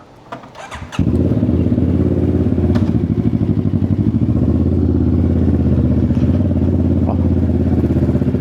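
CF Moto 650NK's parallel-twin engine, breathing through an aftermarket SC Project exhaust, starts about a second in after a few clicks, then idles steadily.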